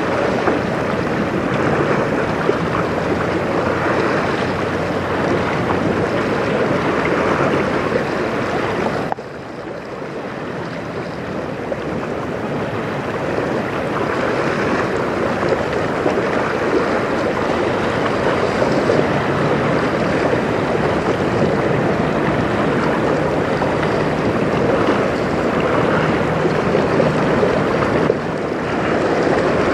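Steady wind buffeting the microphone over choppy river water lapping at the shore. The noise drops suddenly about nine seconds in, builds back up, and dips again near the end.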